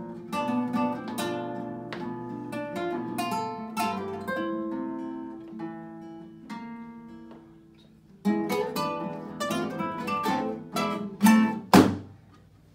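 Ensemble of nylon-string classical guitars playing a Spanish pasodoble, plucked melody over chords. The playing thins out and fades about six to eight seconds in, comes back loud about eight seconds in, and closes on two loud strummed chords near the end that ring away.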